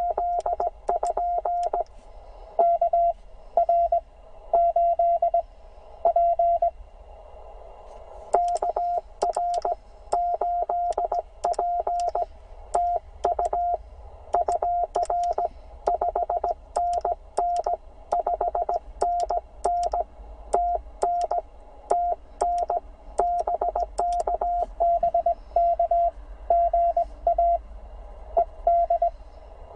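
Morse code (CW) from an HF ham transceiver's speaker: a single tone of about 700 Hz keyed on and off in dots and dashes, with a pause of about a second near the middle, over faint band hiss.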